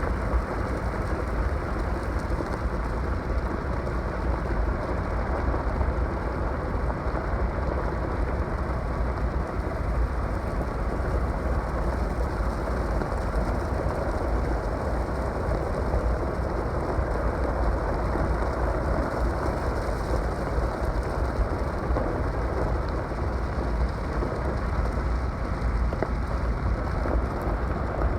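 Spring snowmelt runoff water rushing steadily, a continuous noise with a deep rumble underneath.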